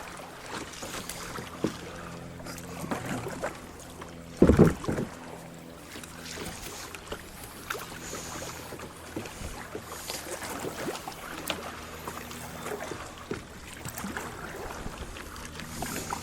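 Kayak paddling on a creek: paddle strokes splashing and water moving past the hull, with scattered knocks and one brief loud burst about four and a half seconds in.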